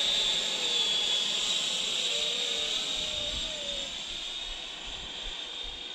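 High-pitched whine of the twin 120 mm electric ducted fans of a 1:9 scale radio-controlled F-35B jet in flight, fading as the model flies away.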